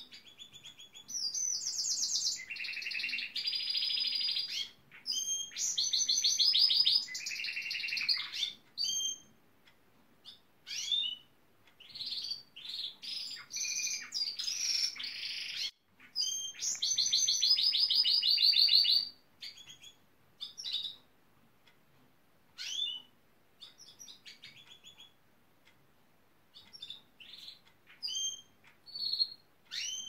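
Gloster canary singing: two long phrases of fast rattling trills, then scattered short chirps. The owner hears the trills as the bird's imitation of building-site machines such as a pneumatic drill.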